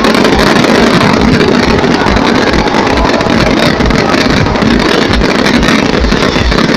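A dense fireworks barrage at close range: a loud, continuous rumble of overlapping bursts, with low thumps coming about three times a second.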